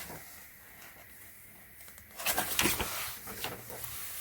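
Quiet room tone, then from about two seconds in a scattered run of light clicks and taps from a smartphone being handled and tapped.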